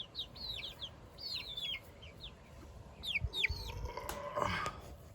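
About eight-week-old chickens peeping: a run of short, high, falling chirps, with a few dull thumps around three seconds in.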